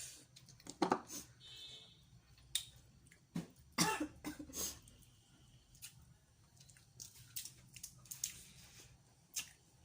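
Close-up eating of boiled seafood: irregular sharp clicks and cracks as shells are handled and broken open, with chewing between them.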